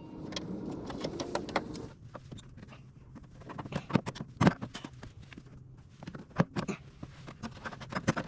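Irregular clicks, taps and clinks of hand tools and small metal parts being handled inside a vehicle's rear cargo door, opened up for work on the handle and lock actuator. A steady low hum stops about two seconds in.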